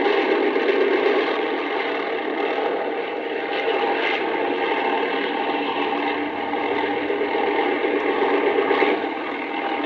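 Aircraft engine noise on an old vinyl sound-effects recording: a steady, unbroken drone with a faint tone in it, without any gunfire, bombs or siren.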